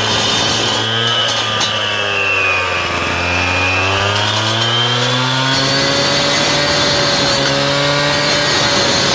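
Petrol cut-off saw with a diamond blade wet-cutting hard limestone patio slab, running at high speed under load. The engine note sags as the blade bites about two to three seconds in, then climbs back and holds steady.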